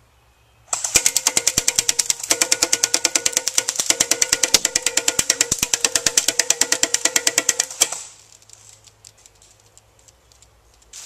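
CYMA AK-47 airsoft electric gun firing full auto: one continuous burst of about seven seconds, a rapid even run of shots over the gearbox motor's whine, stopping about eight seconds in.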